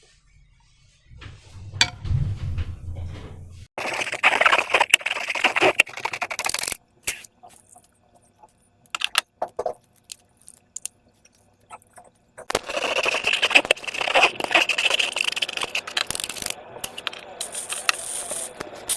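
Slime and balloons being handled by hand: two stretches of crackly, scraping noise a few seconds long, with scattered clicks between and after. A brief low hum comes about a second in.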